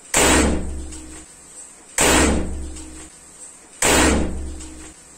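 Homemade calcium carbide bottle gun firing three times, about two seconds apart. Each shot is a sharp bang as the gas ignites inside the plastic bottle and blasts out of the pipe barrel, dying away over about a second.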